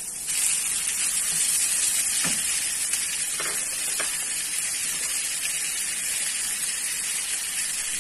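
Raw ground beef sizzling in hot oil as it is tipped onto sautéing onions and garlic in a frying pan; the sizzle jumps up sharply a moment in and stays strong and steady, with a few faint knocks.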